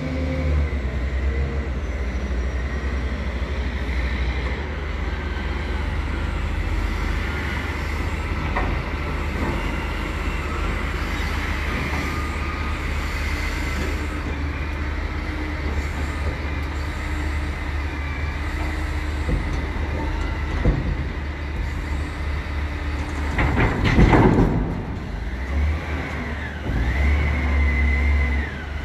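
A heavy diesel engine runs steadily as a container is handled onto a rail flat wagon, with a wavering high whine over it. About five seconds before the end comes one loud metallic clank.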